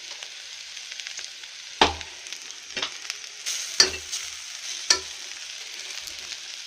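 Brinjal and spice-powder mixture sizzling in a pressure cooker pan while cooked rice is added and stirred in, with four sharp knocks on the pan about a second apart.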